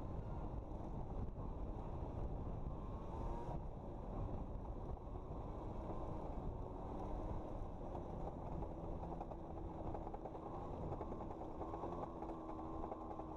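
A quad (ATV) engine running on a trail, a steady low rumble whose pitch climbs slowly in the last few seconds.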